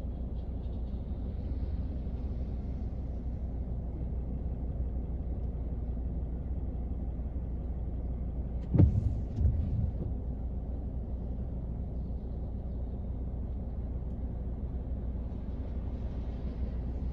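Steady low rumble of rain on a car, heard from inside the cabin. About halfway through comes one sharp thump, the loudest sound, followed within a second by a couple of weaker knocks.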